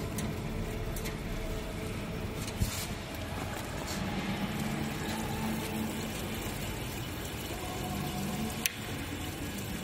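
Chain link fence weaving machine running with a steady mechanical hum, with a sharp click about two and a half seconds in and another near the end.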